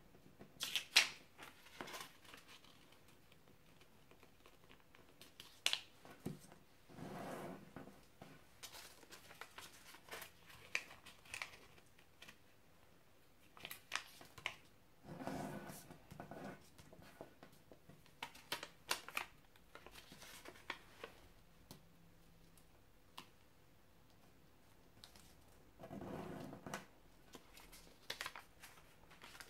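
A small square of sticky-note paper being folded by hand: faint intermittent rustling and crisp creasing, with scattered light clicks and taps of fingers and paper on the table.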